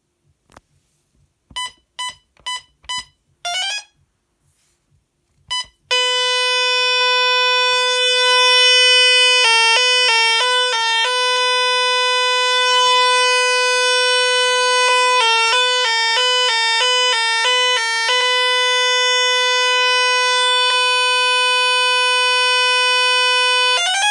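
Gardtec 800 intruder alarm system: four short beeps and a brief rising chirp, then the alarm sounds a loud steady tone. The tone twice breaks into a fast two-tone warble and cuts off suddenly after about eighteen seconds.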